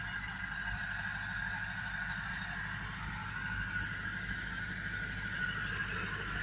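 Same orchard tractor's 90-horsepower diesel engine running steadily under load while ploughing, a fast low throb with a steady high whine over it.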